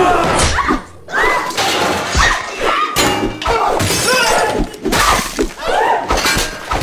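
Objects crashing and smashing in a fight: repeated sharp impacts and breaking sounds, with shouted yells and music underneath.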